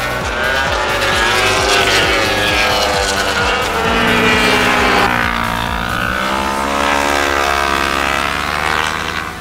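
Racing superbikes at high revs, passing at speed. The engine notes rise and fall with throttle and gear changes, and the pitch shifts a few times as different bikes go by.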